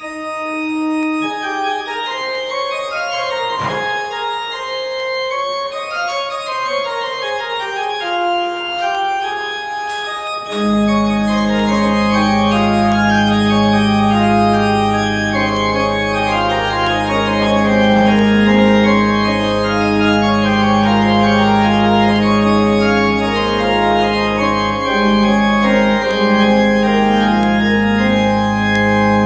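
Church organ playing without singing, starting suddenly; about ten seconds in, deep held bass notes join and the music grows louder and fuller.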